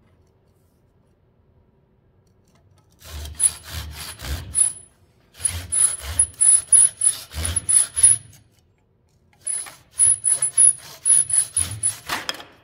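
Japanese pull saw cutting through a thin strip of wood held in a miter box. It starts about three seconds in and goes in three runs of quick back-and-forth strokes, about four a second, with short pauses between, each stroke rasping with a faint high ring.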